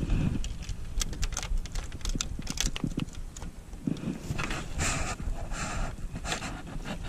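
Close handling noise: irregular crackling clicks of dry grass and gear for the first few seconds, then short bursts of jacket fabric rustling against the microphone from about four seconds in, as a fishing rod and reel are handled.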